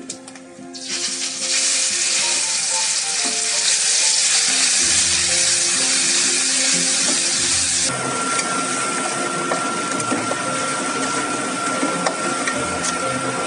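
Ground chili spice paste sizzling loudly in hot oil in a stainless steel wok, starting about a second in, while a metal spatula stirs and scrapes through it. The sizzle eases a little after about eight seconds.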